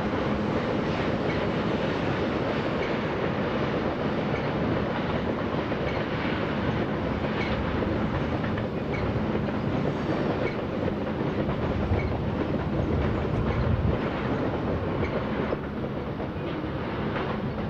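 Diesel-hauled freight train rolling past: a steady rumble of wheels on rail with a low engine hum beneath and regular clicks over the rail joints. The sound eases a little near the end as the last cars go by.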